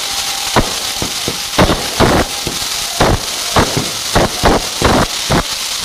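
Kerala festival fireworks (vedikkettu): about a dozen loud firecracker bangs, irregularly spaced at roughly two a second, over a steady crackling hiss of burning fireworks.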